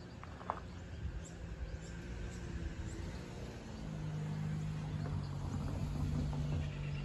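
Narrow-gauge steam train of the Puffing Billy Railway approaching: a low steady drone that grows louder about four seconds in. Birds chirp briefly in the first few seconds.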